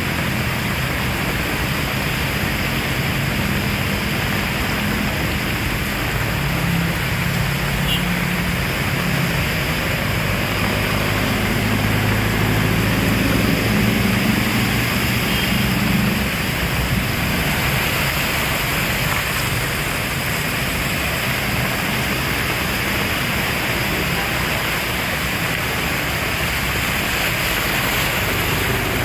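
Heavy rain falling steadily, with a low rumble of thunder rolling through the middle and fading out.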